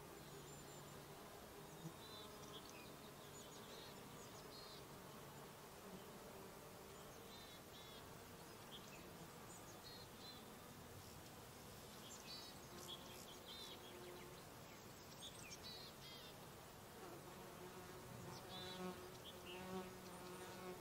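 Flying insects such as bees and flies buzzing faintly as a steady low hum, with short high chirps here and there.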